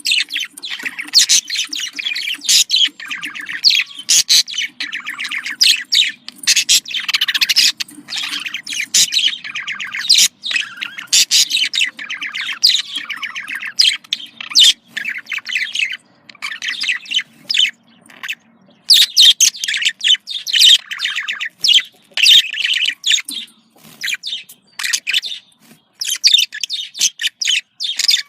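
Budgerigar chattering: a dense, rapid run of high chirps and warbles with brief pauses.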